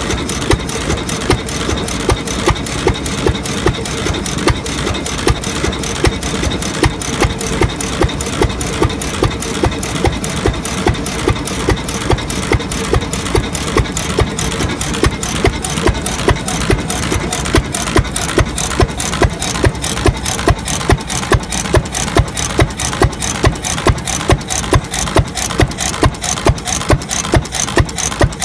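Fairbanks Morse 6HP Z hit-and-miss engine running, with sharp exhaust firing beats about twice a second over a steady clatter of its valve gear. The beats become more regular and pronounced from about halfway through.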